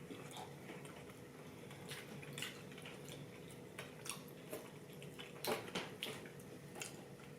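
Faint, scattered wet clicks and smacks of people chewing and eating sushi, over a steady faint hum.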